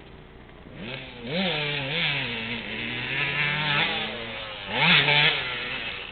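KTM 200SX two-stroke motocross bike engine revving as it is ridden, its pitch climbing and dropping with the throttle several times, with the loudest, sharpest rev about five seconds in before it fades away.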